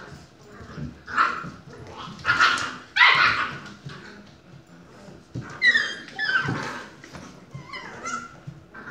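Two puppies play-fighting and barking. A run of loud, harsh barks comes in the first three seconds, then high-pitched yips and whimpers around the middle and again near the end.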